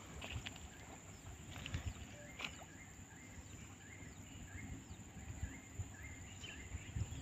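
Faint outdoor ambience by a stream. A small animal gives short, high, falling chirps over and over, about one or two a second, above a steady high whine and a low rumble.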